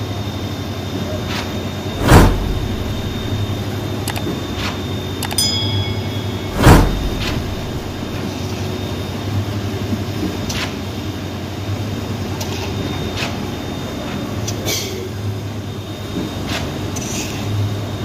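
Truck-mounted concrete pump and ready-mix truck running with a steady diesel drone while pumping concrete, with two heavy clunks about 2 and 7 seconds in and lighter knocks between.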